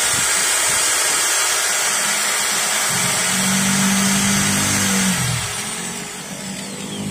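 Modern M-2300B electric angle grinder running unloaded at full speed with a steady whine, just switched on after a fault in its power cord was repaired. A little after five seconds in it dies away and winds down with a falling whine.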